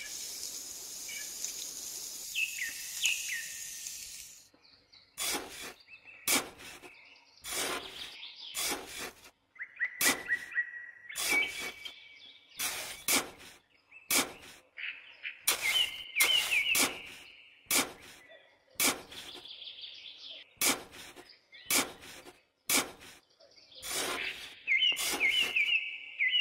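A stick scratching a line into sand for the first few seconds, then a small hand trowel digging and scraping damp sand in short, irregular strokes about one or two a second. Birds chirp and trill between the strokes.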